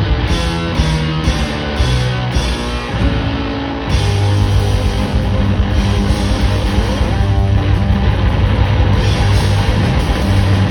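Live blues-rock band playing loudly. For the first few seconds an electric guitar carries a run of separate notes; about four seconds in the full band comes in louder, with drums and heavy low notes.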